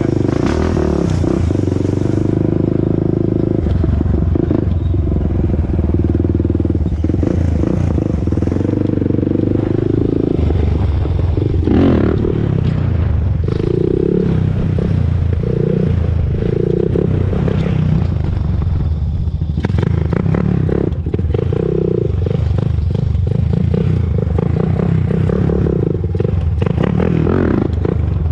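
2001 Honda TRX400EX quad's single-cylinder four-stroke engine running under way, its revs rising and falling as the quad is ridden up and down the street.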